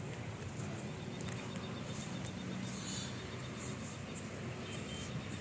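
Quiet outdoor background: a steady low hiss with faint, rapid high-pitched chirping through the middle of it.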